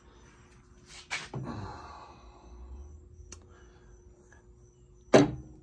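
Handling noises at a workbench: a few clicks and knocks of parts and tools being moved, with a brief low murmur about a second in and a sharp knock near the end.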